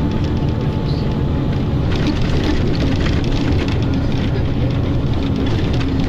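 Steady rumble of a vehicle in motion, heard from inside the cabin, with a faint constant hum over it.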